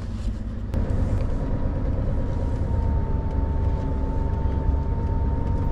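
Scania R620's 16-litre V8 diesel rumbling, heard from inside the cab, getting louder about a second in as the loaded truck pulls forward, with a thin steady whine running over it.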